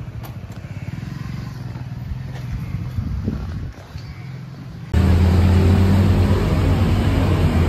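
Motor vehicle noise, jumping suddenly to a much louder, steady low drone about five seconds in.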